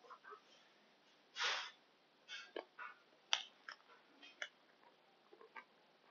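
A metal spoon scraping and clicking against a plastic yogurt cup: a scatter of short clicks and scrapes, with one longer scrape about a second and a half in and a sharp click a little past three seconds in.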